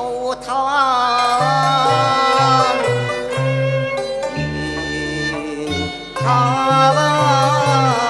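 Cantonese opera music from a Chinese instrumental ensemble: bowed strings carry a wavering melody with vibrato over a line of low bass notes, with one long held bass note about halfway through.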